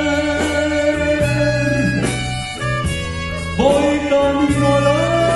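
A man singing a Spanish-language song with a band, holding long notes over guitar accompaniment; one long note ends about two and a half seconds in and another begins about a second later.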